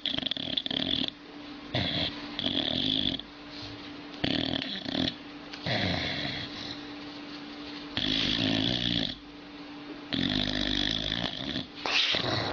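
Old dog snoring, about eight loud, human-like snores spaced roughly one and a half to two seconds apart.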